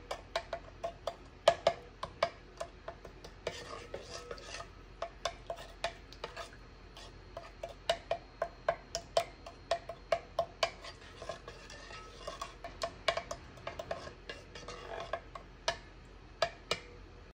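A spoon stirring seasonings into rice and water in a rice cooker's inner pot, clinking against the pot again and again, several times a second, to dissolve them.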